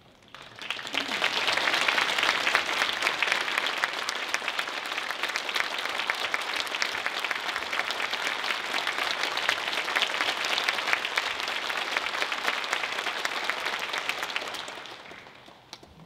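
Concert audience applauding: the clapping swells up over the first second or two, holds steady, then dies away near the end.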